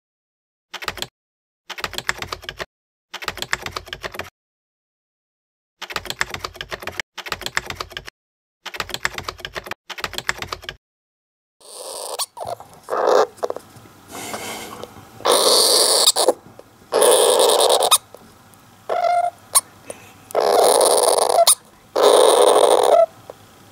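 Runs of typewriter-style key clicks with short silent gaps for about the first eleven seconds. Then a Syrian hamster cries in its sleep: a series of raspy, noisy cries, each under a second long, coming roughly every second or two.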